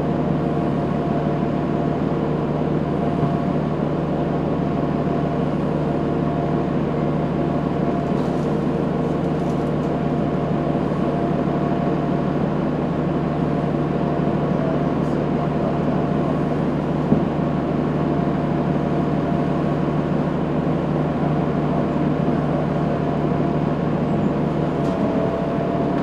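Cummins ISL9 inline-six diesel engine of a Gillig Advantage low-floor transit bus running at a steady speed, heard from inside the bus as a constant drone with a steady whine over it. A single sharp click sounds about two-thirds of the way through.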